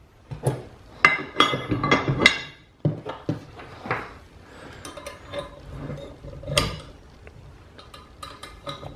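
Steel hitch pins being pushed through a heavy steel adjustable drop hitch and wire R-clips fitted onto them: a series of metallic clinks and knocks, several close together in the first two seconds or so, a few single louder ones later, and lighter quick clicks near the end.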